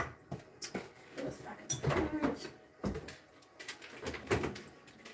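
Light knocks and clicks of kitchen items being handled, with a louder stretch of clatter about two seconds in.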